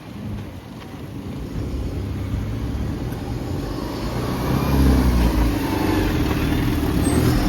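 A road vehicle passing close by, its low engine rumble growing steadily louder and peaking in the second half.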